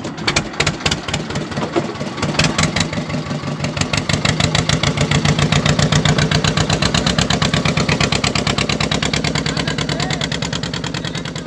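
Fishing boat's engine running with a fast, even pulsing beat, growing louder a few seconds in.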